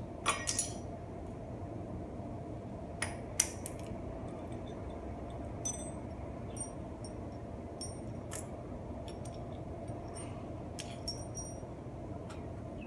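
Loose bicycle bolts, nuts and small tools clinking and tapping on a concrete floor as they are handled: scattered sharp clicks, a few with a brief metallic ring, over a steady low hum.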